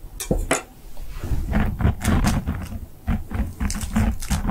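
Close-miked ASMR mouth sounds acting out eating: a run of irregular wet clicks and smacks with low, muffled bumps, busiest from about a second in.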